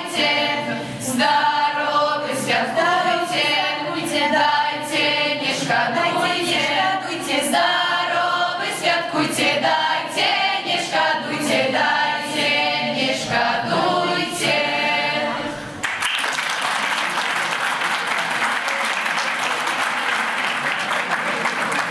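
A school choir of teenage students, mostly girls' voices, singing a Christmas carol unaccompanied; the singing stops suddenly about sixteen seconds in and applause follows.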